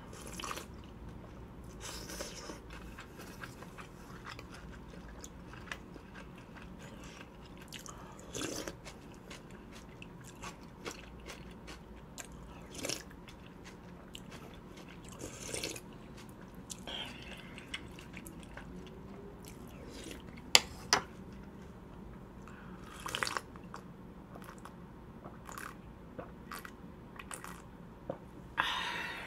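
Close-miked eating of muk-sabal, cold acorn jelly soup: chewing, with sips from the bowl and scattered short clicks. A couple of sharp clicks about two-thirds through are the loudest sounds.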